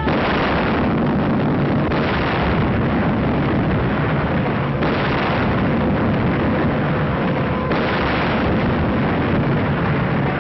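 A run of heavy explosions from bombing, four sudden blasts about two to three seconds apart, each rolling on into a rumble, with the muffled, narrow sound of an old film soundtrack. A faint held musical tone comes in under them near the end.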